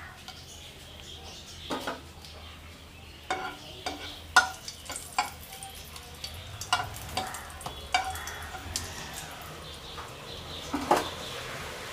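Dried red chillies frying in hot mustard oil in a nonstick frying pan, with a faint sizzle. A spatula stirs them, knocking and scraping against the pan in scattered short clicks.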